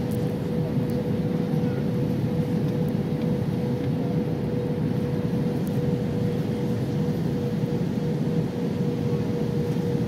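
Airbus A321 cabin noise on final approach: a steady rush with a constant hum-like tone running through it.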